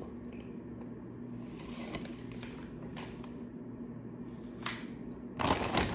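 Quiet handling of paper and packaging: a few faint taps, then a brief rustle near the end, over a steady low room hum.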